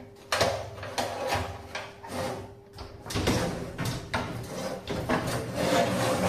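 Sheet-metal drum and end panel of an Electrolux tumble dryer being handled and shifted by hand: irregular knocks, clunks and scraping of metal.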